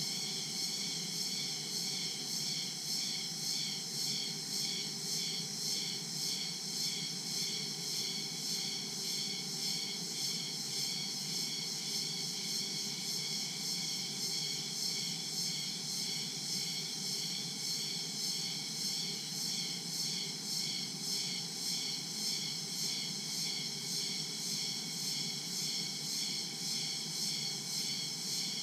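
Dense daytime chorus of crickets and other insects in tropical jungle: a steady high shrill that pulses in an even rhythm without let-up.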